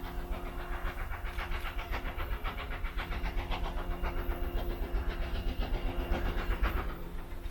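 0-6-0 steam locomotive working up the line, its exhaust chuffing in a fast, even beat over a low rumble, loudest about six and a half seconds in and then easing off.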